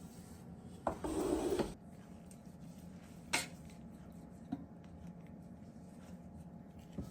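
Household handling noises: a short scraping rub about a second in, then a sharp click or knock a couple of seconds later and a fainter tap after it.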